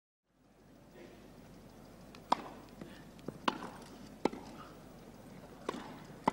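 Tennis rally: rackets striking the ball back and forth, heard as a string of sharp pops roughly a second apart, five clear hits in all.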